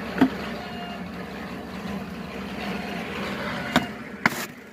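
Sharp knocks from a cured hollow concrete block being handled and set down: one hard knock about a quarter second in, then two more near the end, over a steady mechanical hum.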